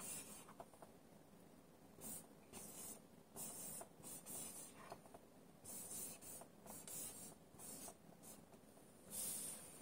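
Felt-tip dry-erase marker writing on a whiteboard: faint scratchy strokes in short runs, with brief pauses between letters.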